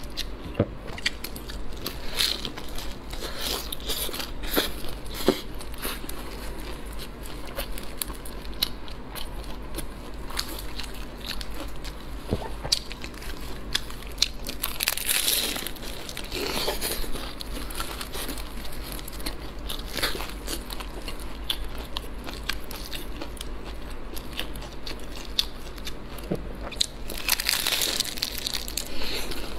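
Biting, crunching and chewing of a crisp, flaky pastry bun stuffed with green peppers and century egg, with sharp crackles of the crust throughout. There is a louder crunchy bite about halfway through and another near the end.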